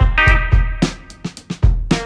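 Background music: funky guitar over a drum beat with a steady rhythm.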